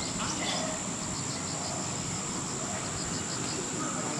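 Insects chirping: a steady high trill with short pulses repeating about five times a second, over a low background hum.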